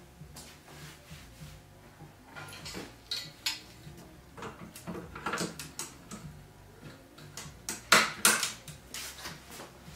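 Metal clinks and clatter of paramotor frame tubes being handled and fitted together, coming in scattered bursts, loudest about eight seconds in.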